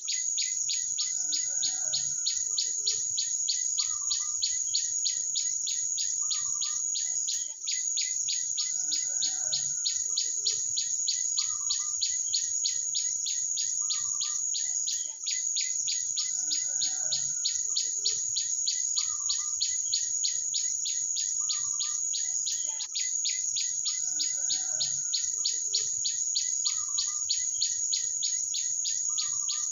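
Birds calling over a constant, rapidly pulsing high-pitched insect trill. Short bird calls recur every couple of seconds, and the whole pattern repeats about every seven and a half seconds, as in a looped recording.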